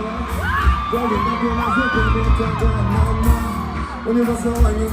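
Live pop music performance: a steady bass beat under a singing voice, with whoops from the crowd.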